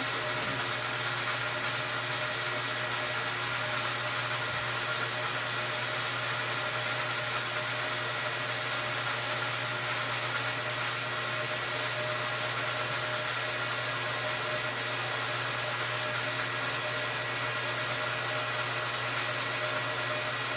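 Metal lathe running at a steady speed, its motor and drive giving an even hum with a steady whine, while a facing cut is taken across a piston.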